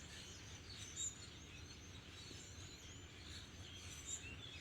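Faint, scattered chirps of small birds over low, steady background noise.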